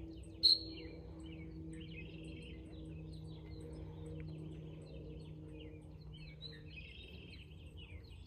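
Songbirds chirping, with one short, sharp, high peep about half a second in and a faint low steady hum underneath.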